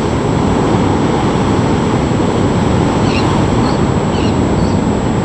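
Heavy hurricane surf: storm-surge waves breaking against a seawall and parking structure, giving a steady, loud wash of noise with no separate crashes standing out.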